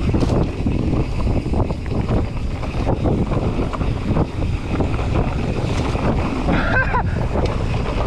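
Mountain bike rolling fast down a dirt trail: steady wind buffeting on a handlebar-mounted microphone over tyre rumble, with many short knocks and rattles from bumps in the trail.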